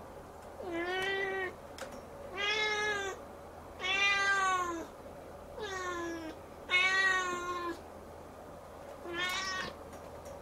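Siamese kitten meowing six times in a row, drawn-out meows of about a second each, the last one shorter.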